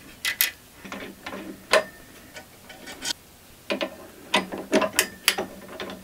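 Metal drill bits clicking in a steel index case as one is picked out, then a denser run of quick metallic clicks and rattles over the second half as the bit is fitted into the drill press chuck.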